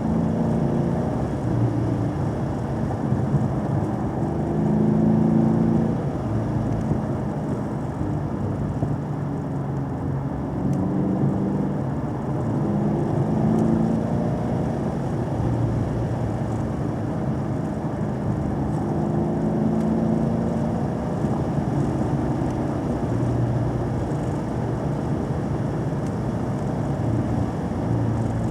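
A car's engine and road noise while driving. The engine note rises and falls several times as the car accelerates and eases off, over a steady rumble of tyres and wind.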